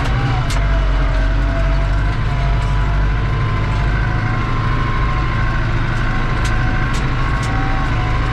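New Holland TD85 tractor's turbocharged diesel engine running steadily under load as it pulls a disc harrow, heard from inside the cab. A faint turbo whine sits over the low drone, and a few sharp clicks come through, one early and three close together near the end.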